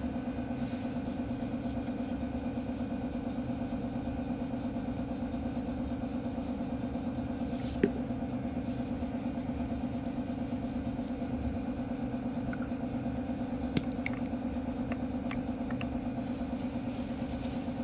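A steady mechanical hum, even in pitch, with two sharp clicks: one about midway and another about six seconds later.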